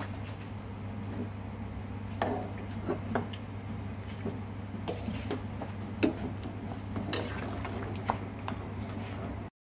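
Metal ladle stirring boiling curry broth in a metal pot, clinking against the pot several times over a steady low hum. The sound cuts off suddenly near the end.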